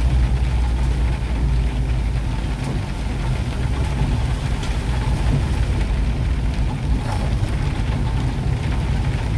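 Steady low rumble of a car's engine and tyres on a wet road, heard inside the cabin, with a few faint ticks of rain on the windshield.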